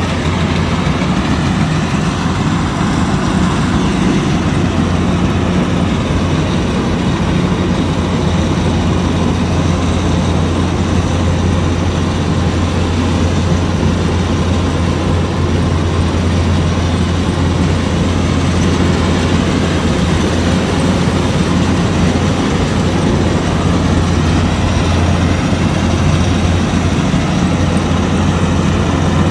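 Kubota DC-105X crawler combine harvester running steadily while harvesting rice: its diesel engine gives a constant low hum under the noise of the cutting and threshing machinery.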